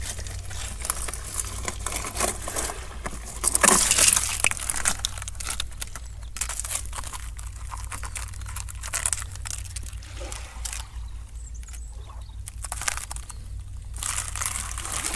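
Shallow rock-pool water trickling and splashing as a hand scrabbles under a rock after a crab, with many small clicks and scrapes against stone and shells. It is loudest about four seconds in and quieter from about eleven to fourteen seconds.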